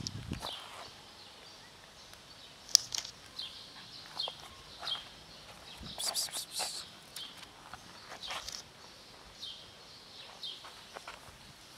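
Dry cat kibble rattling in its container in a burst about six seconds in, with scattered crisp clicks as a cat crunches and noses the dry food. Small birds call repeatedly in the background with short, high, falling chirps.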